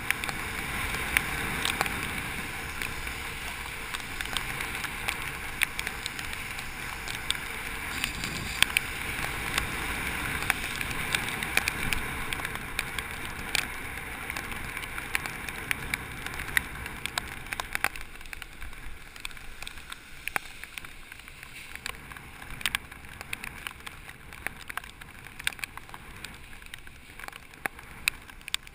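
Bicycle tyres hissing and spraying on a rain-soaked road while riding, with many scattered sharp ticks over the steady hiss. The hiss eases about two-thirds of the way through.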